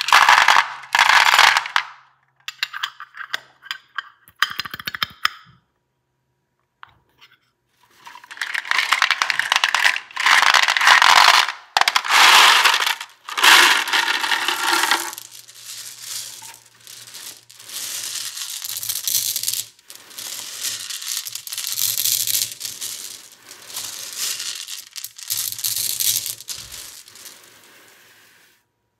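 Gumballs clattering and rattling against hard plastic as they are poured out of a capsule into a plastic tub. After a short quiet gap comes a long, loud rush as the tub is tipped and they pour out, followed by softer, scattered rattling as they are spread and roll over artificial grass.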